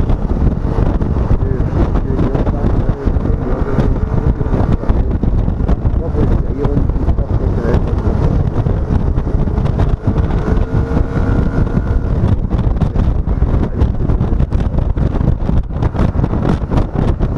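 Wind rushing over the microphone of a Yamaha XMAX 125 scooter in motion, with the scooter's single-cylinder engine droning underneath, its pitch wavering slightly.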